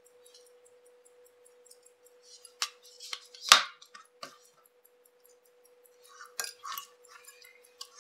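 Small metal clicks and clinks of watchmaking tools against the parts of a Minerva chronograph movement during assembly. The clinks are scattered, with the loudest, a sharp tap, about three and a half seconds in.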